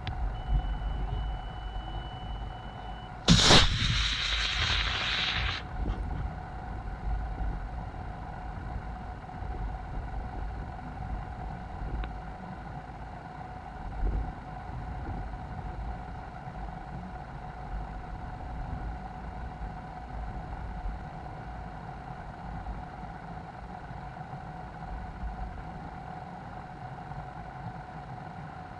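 A steady high beep for about three seconds, then an Estes C6-5 model rocket motor ignites with a sudden loud hiss that lasts about two seconds at liftoff and cuts off. After that, only wind noise and a faint steady hum.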